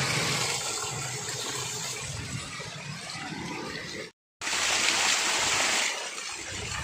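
Rushing water, a steady noise with a sudden cut about four seconds in; after the cut the water sounds louder for about a second and a half.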